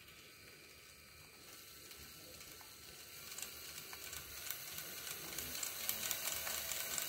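LEGO Technic one-cylinder model engine driven by a Power Functions electric motor. Its plastic cylinder head clatters with rapid clicks as a cam knocks it up and down, getting louder over the first few seconds as it comes up to speed.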